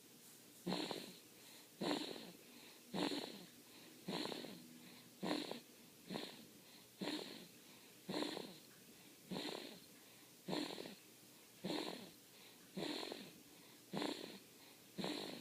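A baby snoring in its sleep: short, wheezy breaths about once a second, each starting sharply and then fading away.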